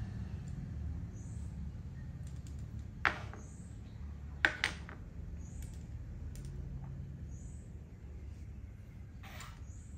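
Thai chess (makruk) pieces clicking on the board as they are picked up and set down: a single sharp click about three seconds in, a quick double click a second or so later, and another near the end, over a steady low hum.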